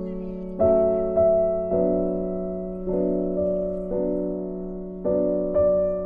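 Background music: a piano playing slow, held chords, each struck and left to fade before the next, about one a second.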